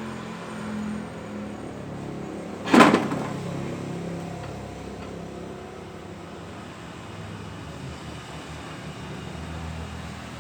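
Work on a Panther transmission being taken apart: one sharp clank about three seconds in, over a steady low hum.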